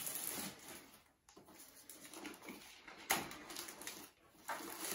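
Rustling and crinkling of a thin protective dust wrap being pulled off a projector by hand, with a sharper, louder rustle about three seconds in.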